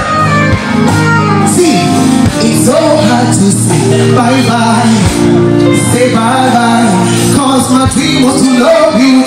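Loud live music, a band playing with a male singing voice over it.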